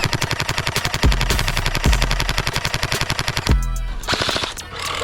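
Gel blaster firing full-auto in a fast, even stream of shots, about ten a second, that stops about three and a half seconds in; a shorter run of shots follows near the end. Background music with a bass beat plays underneath.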